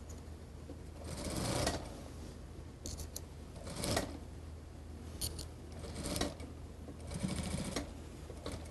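Industrial lockstitch sewing machine stitching in several short bursts with pauses between, as the seam is fed through a little at a time.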